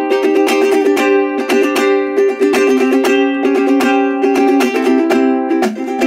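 Handmade solid-wood soprano ukulele, full-body depth, strummed in a quick steady rhythm, with chords ringing between the strokes.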